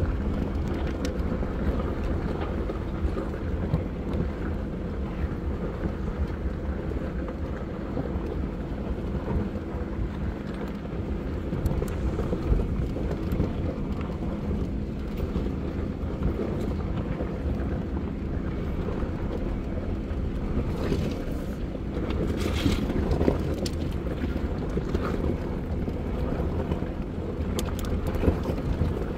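Jeep Wrangler JK crawling down a rocky dirt trail: a steady low engine and drivetrain rumble with wind on the microphone. A few sharper knocks and rattles come about three-quarters of the way through as it goes over rocks.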